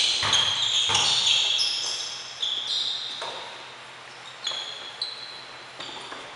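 Basketball bouncing on a hardwood gym floor in a few sharp knocks, with sneakers squeaking on the boards, the squeaks busiest in the first few seconds, all echoing in a large gym.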